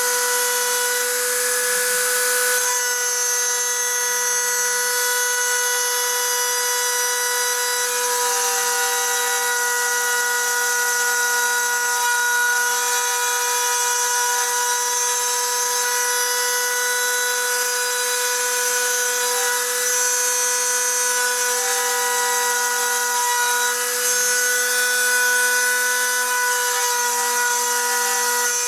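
Rotary tool mounted as the spindle of a small CNC mill, running with a steady high-pitched whine while its 2 mm two-flute end mill cuts into chipboard, with the hiss of the cut underneath.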